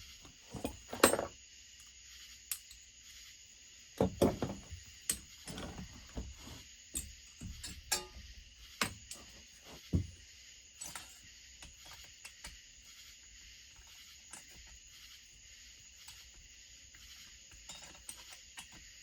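Metal tools and chainsaw parts clinking and knocking on a workbench: several sharp clanks in the first ten seconds, then sparser light taps, over a steady high hiss.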